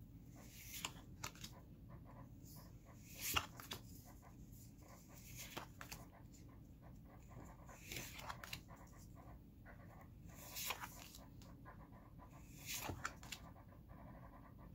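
Trading cards being slid through the hands one by one, faint soft swishes and ticks of card stock rubbing together every couple of seconds, the loudest a little over three seconds in.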